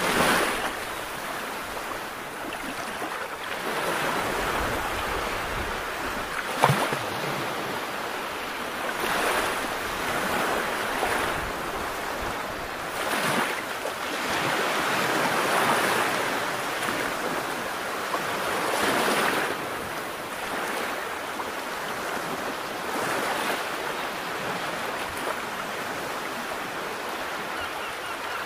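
Sea waves washing in, the noise swelling and falling back every three to four seconds, with one sharp click about seven seconds in.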